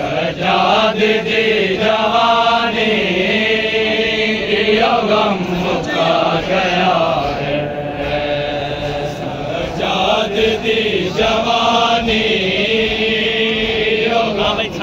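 A group of men chanting a noha, a Shia mourning lament, in long held, wavering notes with short breaks between lines, led into a microphone.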